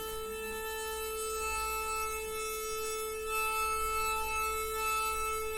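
A single musical note held steady at one pitch, sustained as the song's closing note.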